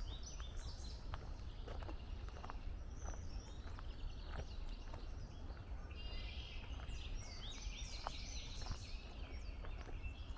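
Woodland songbirds singing and calling, several at once, with a dense run of quick chirps and slurred notes about two-thirds of the way through. Footsteps on a dirt trail are heard underneath, over a steady low rumble.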